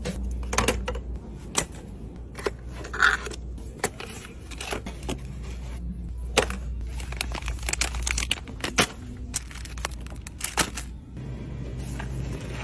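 Products being handled and pulled from store shelves: scattered sharp clicks, taps and clacks of tins, boxes and packaging, over a steady low hum.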